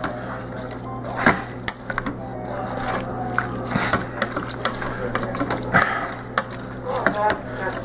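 A spoon stirring rice, vegetables and liquid in an Instant Pot's inner pot, with irregular clinks and scrapes against the pot, over a steady low hum.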